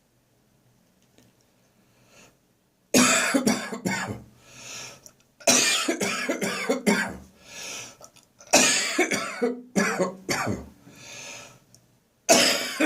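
A person coughing in hard, hacking fits, the sign of a lingering cough. After about three seconds of quiet, several bouts of rapid coughs follow, each with a drawn-in breath between.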